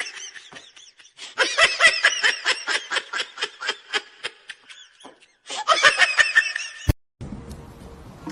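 High-pitched laughter in rapid bursts of short pulses, broken by a brief pause about five seconds in, and ending with a sharp click.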